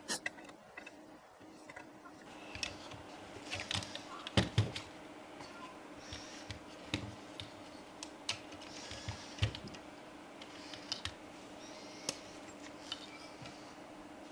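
Irregular small clicks and taps of hard plastic and metal parts and a small hand tool as a gimbal's arm lock and its cover plate are refitted by hand, with two louder knocks about four and a half seconds in.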